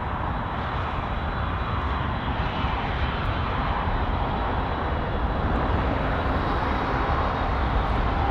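Jet airliner engines rumbling steadily, slowly growing louder as the aircraft comes closer.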